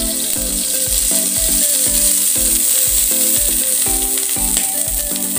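Olive oil sizzling and spattering in a hot skillet, over background music with a steady beat.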